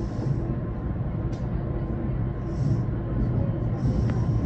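Electric train running on the rails, heard from inside behind the driver's cab: a steady low rumble with patches of hiss and two light clicks.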